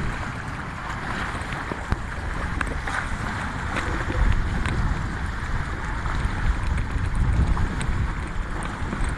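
Wind buffeting the microphone over water rushing and splashing along the hull of a small Hobie sailboat under sail, a steady rush that grows a little louder about four seconds in.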